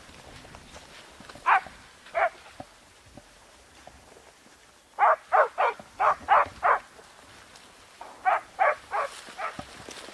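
Hunting dogs barking in short volleys: two barks, then a quick run of about six, then another run of four or five.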